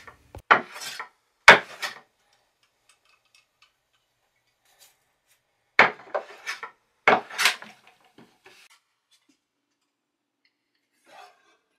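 Hand plane shaving along the edge of a wooden board to joint it, in short strokes: two near the start and a run of about four a few seconds later.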